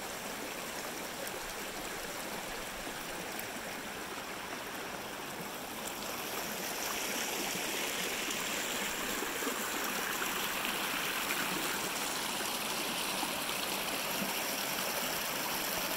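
Shallow creek running over rocks and small cascades, a steady wash of water noise that grows louder about six seconds in and holds there.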